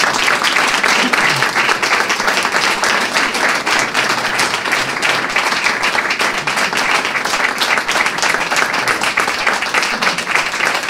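An audience of many people applauding, a dense, steady patter of clapping hands.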